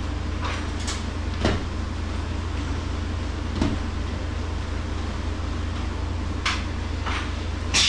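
Steady low hum of a walk-in meat cooler's refrigeration unit running, with a few scattered light knocks and clicks, the loudest near the end.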